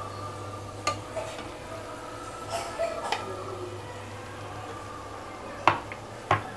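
A spatula knocking and scraping against a stainless steel kadhai as sauced fried potatoes are turned. It gives a handful of separate sharp clicks, the loudest near the end, over a faint steady hum.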